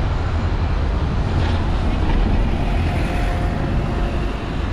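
City street traffic with double-decker buses running close by: a steady low rumble of engines and tyres under continuous street noise.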